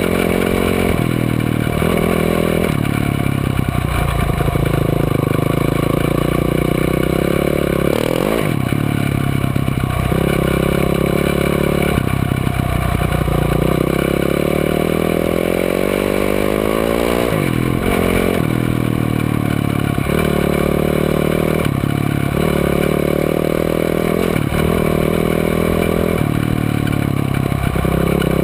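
Off-road vehicle engine heard on board while riding a dirt trail, steadily loud, its pitch climbing in long sweeps and dropping back several times as the rider accelerates and shifts or lifts off the throttle.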